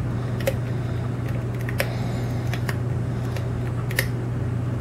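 Light clicks of a hook pick working the spring-loaded pins inside an oval pin-tumbler lock cylinder, a handful of separate clicks as pins are lifted and set. A steady low hum runs underneath.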